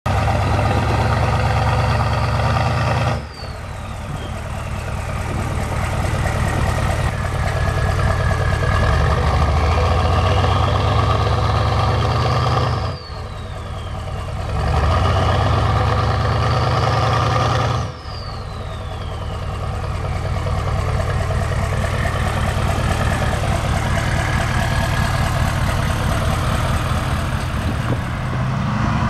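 Turbodiesel truck engine heard close at its tailpipe, held at raised revs and let off three times. Each let-off drops the level and brings a falling turbo whistle, after which the revs and a rising turbo whine build up again.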